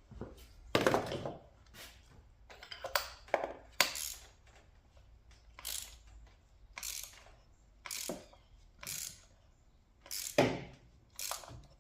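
Ratchet wrench clicking in short strokes with pauses between them, about one stroke a second, working out a spark plug that is tight in its threads.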